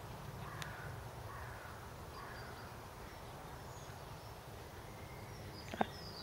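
Quiet outdoor ambience: a steady low rumble with a few faint bird chirps, and a single sharp knock near the end.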